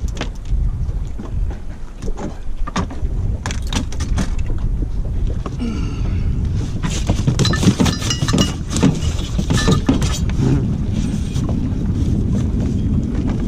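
Wind buffeting the microphone in a steady low rumble, with irregular clatters, knocks and a few metallic clinks of fishing gear and anchor chain being handled on a boat deck, busiest near the middle.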